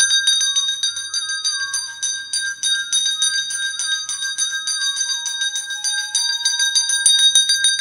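Hindu temple bells rung hard and fast: a rapid, continuous clanging of many strikes a second over their steady ringing tones.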